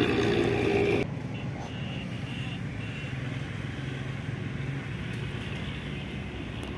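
Motorcycle engine running close by, cut off abruptly about a second in. Afterwards a quieter, steady low engine hum, with a few short high chirps.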